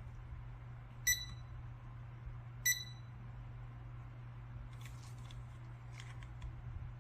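LiKE4U C-601 digital fridge thermometer giving two short beeps about a second and a half apart while its alarm is being set, followed later by a few faint clicks. A low steady hum sits underneath.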